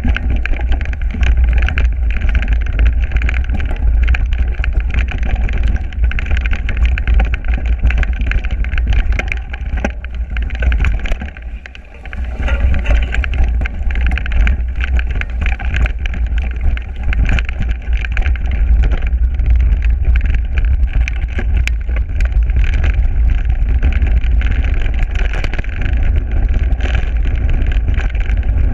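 Mountain bike riding a bumpy dirt forest trail, heard through an action camera mounted on the bike: heavy wind rumble on the microphone with constant rattling and knocking from the bike and tyres over the ground. The noise eases briefly about eleven seconds in, then returns.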